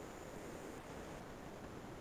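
Faint steady hiss of an open microphone's background noise, with no distinct sounds.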